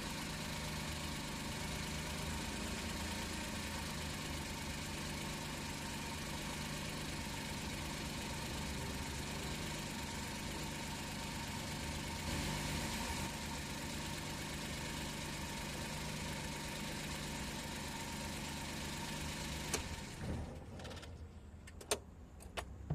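Suzuki Carry DA63T kei truck's 660 cc three-cylinder engine idling steadily, then switched off about 20 seconds in, followed by a few sharp clicks.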